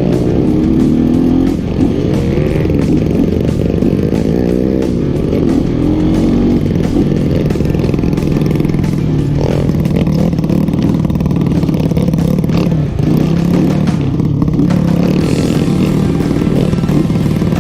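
Motorcycle engine running and revving up and down at low speed, with background music over it.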